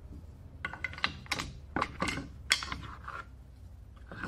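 Wooden ancient-Egyptian-style pin lock being worked: irregular sharp wooden clicks and clacks as the bolt is slid and the pins knock in and out.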